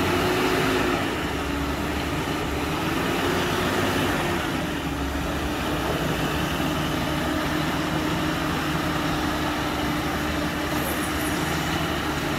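Toyota Hilux's 2.4-litre four-cylinder turbo-diesel engine pulling under load as the pickup crawls up a muddy clay slope, with a steady engine note.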